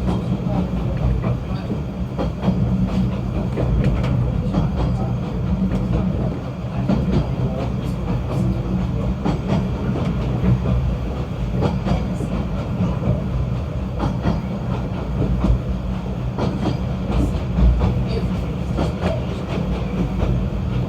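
Snowdon Mountain Railway rack train running, a steady low rumble with frequent irregular clicks and knocks.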